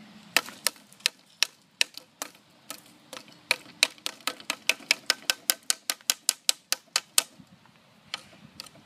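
A tool striking a rusted old iron rake with nail teeth over and over, knocking off rust and dirt. Sharp clicking taps come a few a second at first, then speed up to about four or five a second, with a short pause near the end.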